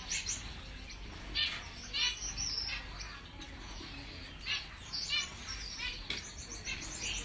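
Finches chirping: short, high call notes in small clusters, repeated every second or so.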